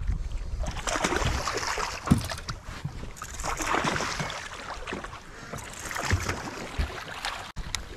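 Baitcasting reel being cranked as a hooked smallmouth bass is played to the boat, over wind buffeting the microphone; the fish splashes at the surface near the end.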